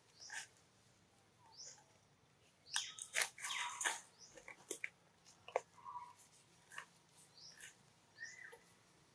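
A newborn monkey suckling and shifting against its mother's fur, heard as scattered soft clicks and rustles, busiest about three seconds in, with a few brief faint squeaks.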